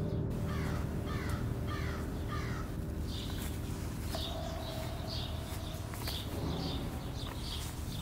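A crow cawing four times in quick succession, over a low steady drone, with a small bird chirping about twice a second.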